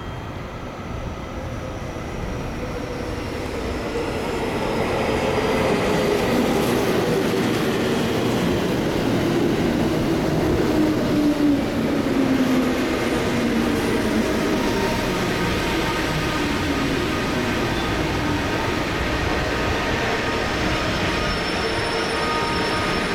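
JR Central 313 series and 211 series electric multiple-unit local train pulling into the platform and braking to a stop. The running noise grows over the first few seconds as it enters, then a motor tone falls steadily in pitch as the train slows.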